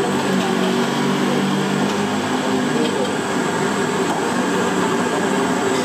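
Steady, loud background din with indistinct voices in it, and a low engine-like hum in the first two seconds or so that then fades into the din.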